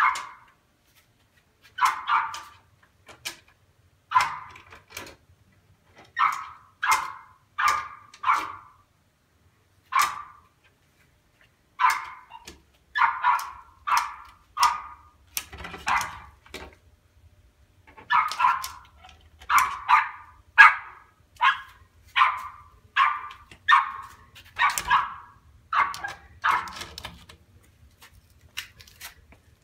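West Highland white terrier barking over and over in short, sharp barks, singly and in quick runs of two or three with brief pauses between, the last few fainter. It is barking for its owner to come inside.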